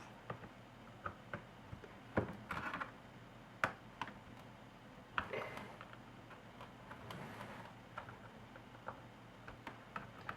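Plastic clicks and short scrapes as a plastic card pries at the snap-fit latches of a laptop's plastic back panel: scattered sharp ticks with brief scraping between, the latch not yet giving way.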